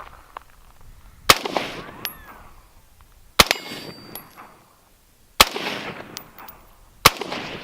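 Four single rifle shots from a Colt AR-15 firing 5.56, about two seconds apart, each followed by a short echoing tail. Thin ringing tones after some of the shots are the stainless steel plate being struck.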